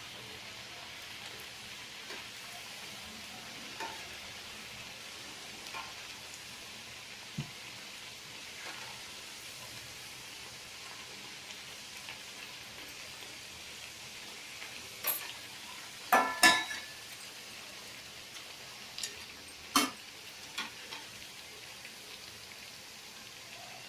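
Coconut fritters deep-frying in hot oil, a steady sizzle. A few sharp metal clinks of a utensil against the pan come through, loudest in a cluster about two thirds of the way in and once more a few seconds later.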